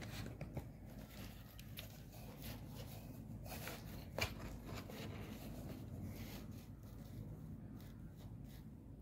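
Faint handling noise of a smartphone held in the hands: soft rustles and small clicks, with one sharper click about four seconds in, over a steady low room hum.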